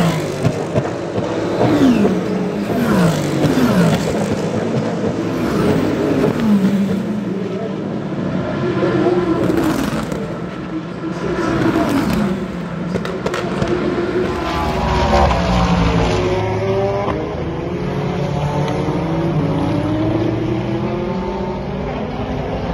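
Endurance race cars passing at full speed one after another, each engine note dropping in pitch as it goes by. After a cut about 15 s in, more race cars are heard at a different spot, their engines rising and falling in pitch through the gears.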